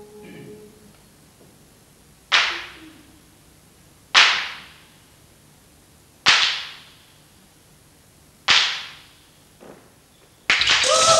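Four sharp cracks, evenly spaced about two seconds apart, each ringing on in the hall's reverberation. Near the end, loud music with voices starts abruptly.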